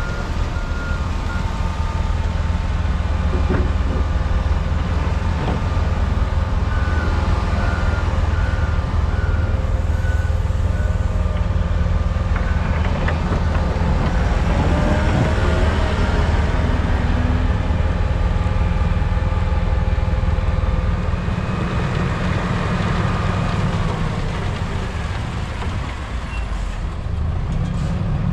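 Heavy diesel snow-removal machinery running steadily under load, with a reversing alarm beeping in even pulses near the start and again a few seconds later.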